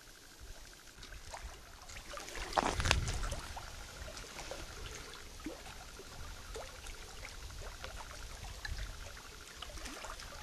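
Small waves lapping and splashing against the rocky lake shore, with an irregular run of little clicks and splashes and a louder splash about two and a half seconds in.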